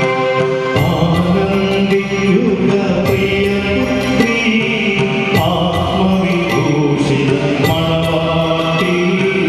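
Church choir singing a liturgical chant with instrumental accompaniment, the held notes changing pitch every second or two, and light percussion strokes sounding now and then.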